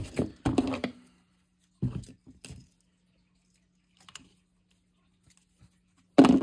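Tabletop handling noises as a spool of braided fishing line is moved about, then a faint snip of scissors cutting the line about four seconds in. A louder knock comes near the end.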